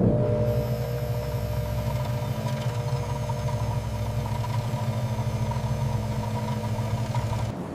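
Laboratory overhead stirrer motor running with a steady low hum and a few fainter higher whining tones. It stops abruptly near the end.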